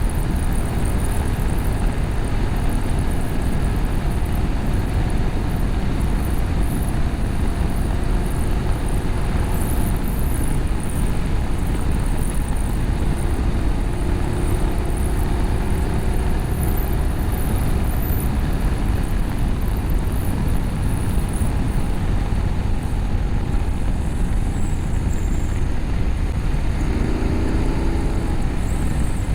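Steady wind rush on the camera microphone at road speed, with the BMW F850GS parallel-twin running underneath through its Akrapovic slip-on exhaust and cat bypass, its note drifting a little with the throttle.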